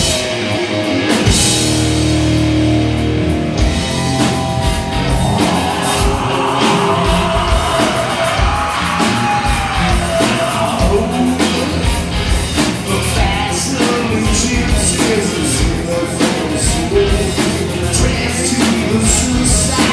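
Hard rock band playing live and loud: distorted electric guitars, bass and a drum kit keeping a steady beat.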